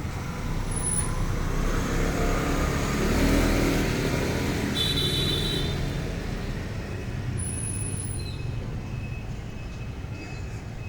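A road vehicle passing by over steady traffic rumble, loudest about three seconds in and then fading away.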